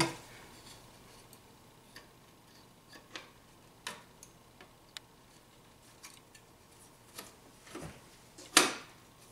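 Scattered light clicks and taps of a replacement TV circuit board being lined up with the mounting slots on the TV's metal back panel and slid in, with one louder click near the end.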